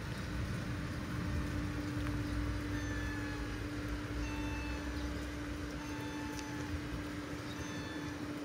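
Steady low mechanical rumble with a constant hum, as from a motor or engine running, with a few brief high thin tones now and then.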